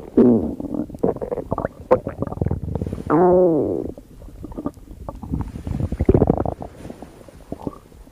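Human stomach growling and gurgling in an irregular run of rumbles. About three seconds in comes one long growl whose pitch rises and then falls, and another loud rumble follows about six seconds in.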